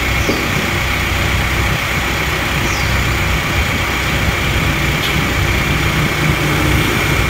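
Steady mechanical hum like an idling engine, with a low rumble and a faint high tone, unchanging throughout.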